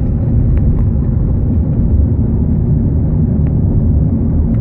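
Steady low rumble of a car driving at speed, road and wind noise heard from inside the cabin, with a few faint clicks.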